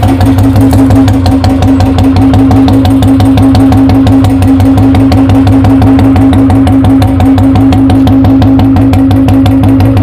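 Royal Enfield Classic 350 BS4's single-cylinder engine idling with its steady, even thump, loud at the tip of an aftermarket round bend pipe and hollow long-bottle silencer. The exhaust has no filters or catalytic converter, which is what makes it this loud.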